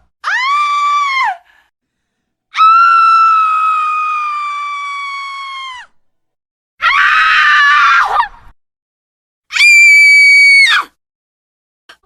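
A woman screaming four times with short silent gaps between. The first is short and drops in pitch at its end, the second is held for about three seconds and slowly sinks and fades, the third is rougher and raspier, and the fourth is short and high.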